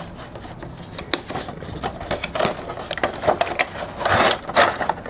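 Cardboard toy box being opened by hand: the packaging scrapes, taps and rustles in short irregular clicks. There is a louder stretch of cardboard and plastic rustling about four seconds in.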